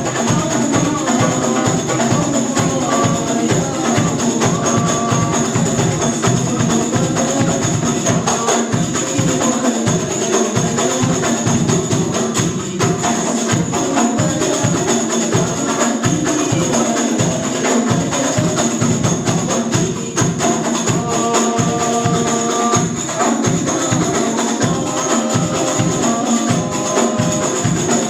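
Sholawat music: hand-struck frame drums and a jingling tambourine keeping a fast, even beat, with a melody sung over it.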